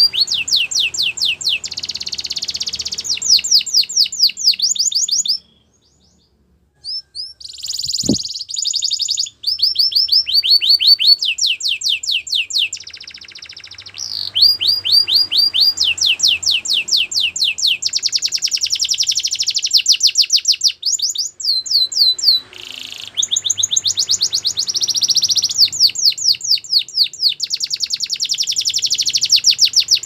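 Domestic canary singing: long runs of fast, evenly repeated high trills and rolls, changing note type every few seconds with brief pauses between phrases. A single sharp click sounds about eight seconds in.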